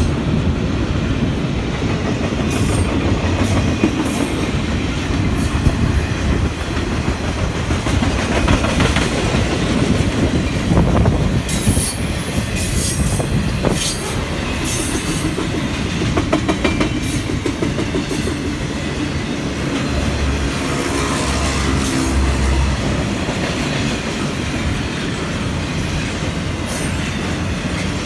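Union Pacific double-stack intermodal freight train's container-laden well cars rolling past close by: a steady, loud rumble of cars and wheels, with wheels clicking over rail joints throughout.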